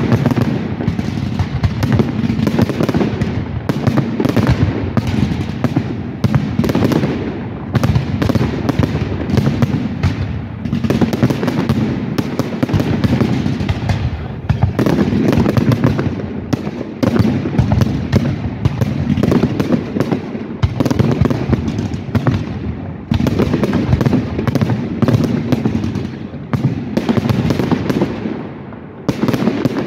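Fireworks display at full tilt: aerial shells bursting one after another in a loud, dense barrage, the bangs overlapping with crackle.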